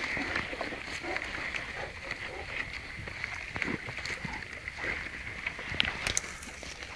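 Grass rustling and crackling as a Great Dane pushes through it and drops down to roll on its back, over a steady high hiss.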